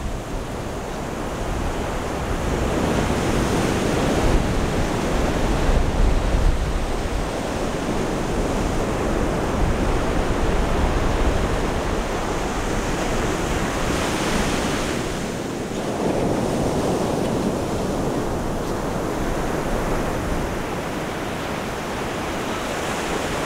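Ocean surf breaking and washing on the beach: a steady rushing that swells and eases, with wind rumbling on the microphone.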